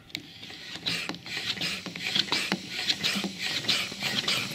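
A hand-press bottled-water pump fitted to a plastic jerry can is worked, sending a stream of water splashing into a bowl from about a second in, with an irregular patter. The modified pump audibly leaks air as it is pressed.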